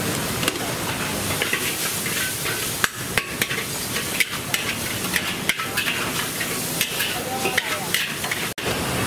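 Food frying with a steady sizzle while a metal utensil stirs it, clinking and scraping against the pan many times at an uneven pace.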